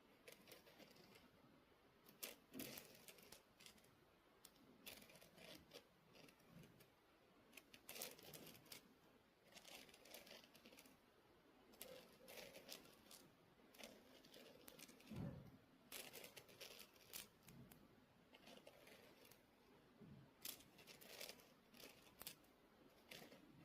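Soft scratching on a snowflake Christmas ornament: quick, irregular scratchy strokes in clusters of a few at a time, with short pauses between them.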